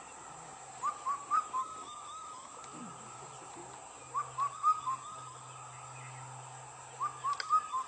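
A bird calling a short phrase of four or five quick whistled notes, repeated three times about three seconds apart.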